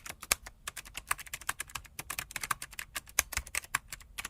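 Fast, irregular clicking of typing on a keyboard, about ten clicks a second.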